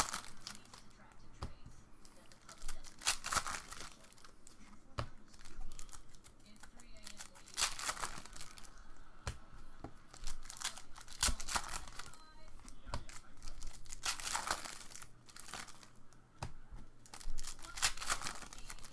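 Sealed packs of 2013 Panini Prizm Football trading cards being torn open, their wrappers crinkling in short noisy bursts every few seconds.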